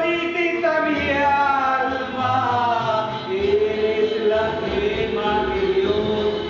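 A man singing a slow romantic song in Spanish into a microphone, over a musical backing. His voice glides through a phrase and then holds one long note through the second half.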